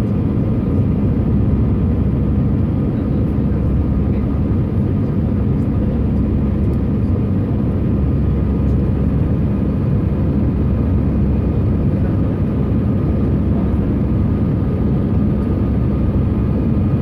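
Steady cabin noise of an Airbus A319-111 climbing after takeoff, heard inside the cabin by the wing: its CFM56-5B turbofan engines and the airflow make a deep, even rumble with faint steady tones above it.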